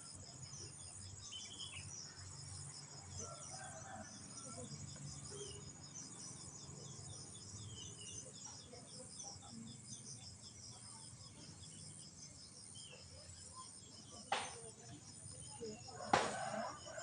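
Steady pulsing chirr of crickets and other insects. Near the end come two sharp cracks a couple of seconds apart, the second louder.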